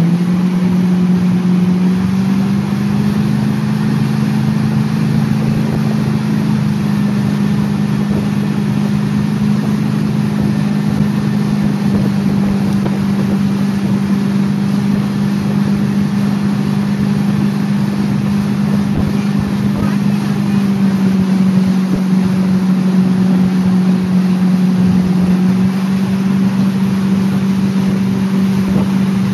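Tow boat's engine running steadily at towing speed, its pitch stepping up slightly about two seconds in and easing back down about twenty seconds later, with a steady hiss of water and wind above it.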